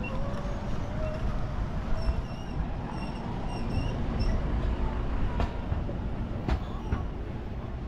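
Street ambience in a narrow cobbled lane: a steady low rumble of distant traffic, with a run of short high chirps a couple of seconds in and two sharp clicks later on.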